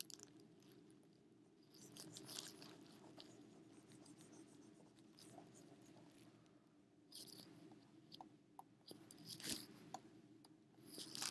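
Near silence: a faint steady low room hum with a few short, soft scratchy rubbing noises, the loudest about nine and a half seconds in.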